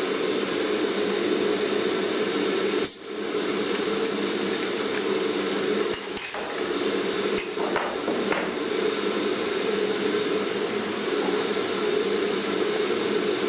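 Steady running hum of an AXYZ CNC router, broken by a few brief knocks about three, six, seven and a half, and eight and a half seconds in.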